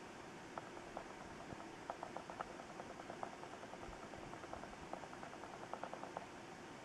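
Steady rain falling in a thunderstorm, with scattered sharp ticks of impacts on a hard surface close by, several a second.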